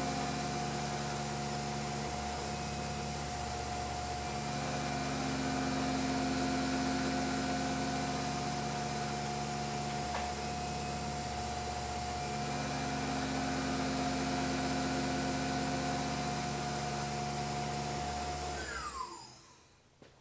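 Tormach CNC mill's spindle running with a 5/16-inch three-flute end mill cutting an aluminum workpiece: a steady whine with machining noise, the lower part of the sound shifting every few seconds. Near the end the spindle winds down with a falling whine and the sound dies away.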